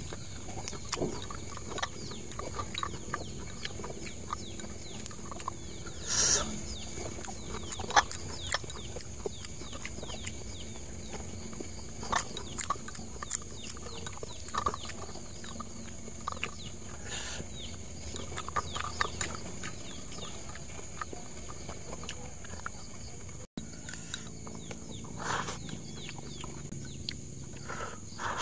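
A person chewing cooked bamboo shoots close to the microphone, with chopsticks clicking against a glass bowl in scattered ticks and a couple of louder knocks about six and eight seconds in. A steady high-pitched drone runs underneath.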